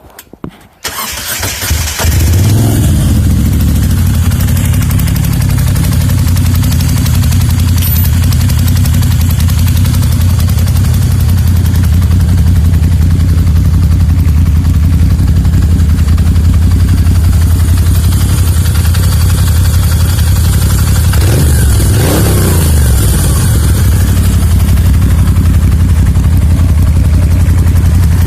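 Moto Guzzi V7 II Racer's air-cooled transverse V-twin being started: it catches about two seconds in and settles into a steady idle, with one brief rise and fall in revs about three-quarters of the way through. The idle carries a ticking that the owner hates and that his earlier 2013 Racer did not make.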